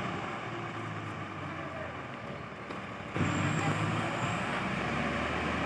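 Tata Hitachi crawler excavator's diesel engine running as it works its boom, growing clearly louder about three seconds in.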